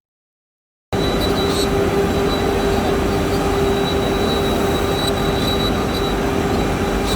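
Benchtop CNC milling machine cutting aluminium: a steady, noisy machining sound with a constant hum and a high whine. It starts abruptly about a second in.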